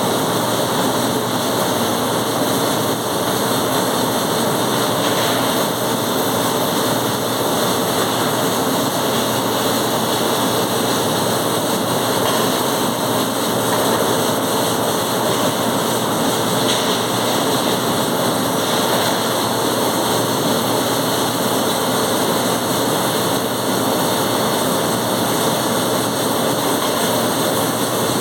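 Welding: a steady, unbroken noise with no pauses.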